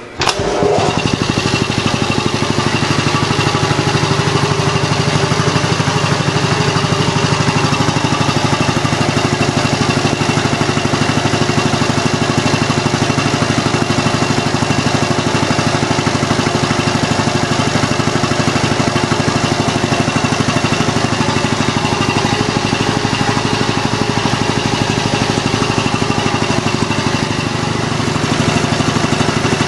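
Quincy QR-325 two-stage reciprocating air compressor switching on and running steadily, its pump chugging with a fast, even beat as it builds tank pressure.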